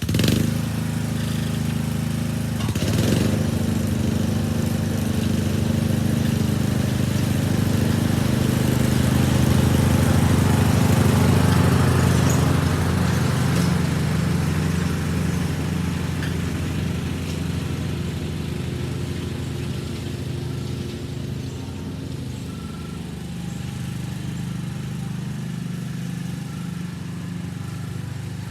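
John Deere riding lawn mower engine catching at the very start and then running steadily, with a brief sharp noise about three seconds in.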